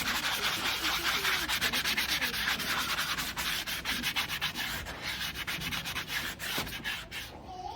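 Horse's hoof being scrubbed up with quick, repeated abrasive strokes, the finishing clean-up of a trimmed foot; the scraping eases off near the end.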